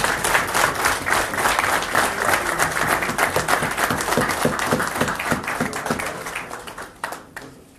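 Audience applauding: dense clapping from many hands that thins out and fades away near the end.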